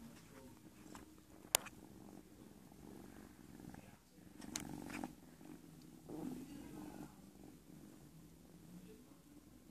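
Siamese cats purring, a steady low purr up close. A single sharp click about a second and a half in is the loudest sound, and brief louder noises come around the middle.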